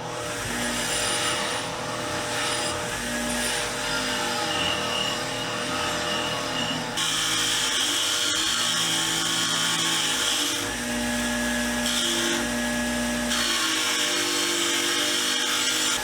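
Power-driven fine wire wheel spinning while a rusty wrench is held against it, scrubbing the rust off. There is a steady motor hum, and the scratchy brushing noise grows louder when the wrench is pressed harder, about seven seconds in and again near the end.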